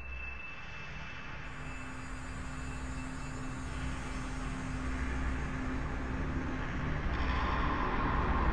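A low rumbling drone with a faint steady hum, growing steadily louder throughout.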